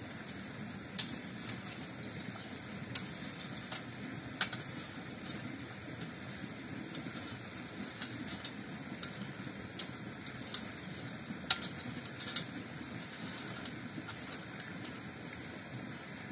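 Steel shovel working loose, stony soil, the blade clinking sharply on stones a few times over a steady low background rush.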